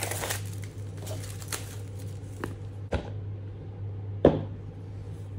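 A product box being handled and opened: rustling and scraping of the packaging with scattered taps and clicks, the sharpest a knock about four seconds in, over a steady low hum.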